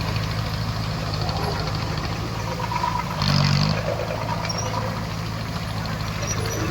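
Bulldozer's diesel engine running steadily, with a brief louder surge about three seconds in.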